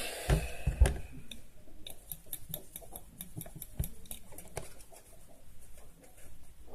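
Pen tip scraping and tapping pressed eyeshadow powder out of its pan: a run of small, irregular clicks and scratches, densest from about two to four and a half seconds in.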